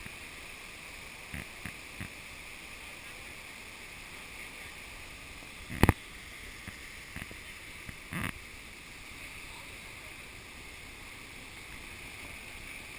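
Steady rush of a waterfall and whitewater cascading over boulders. A few light knocks sound near the start, a loud sharp clunk about six seconds in, and another thud about two seconds later.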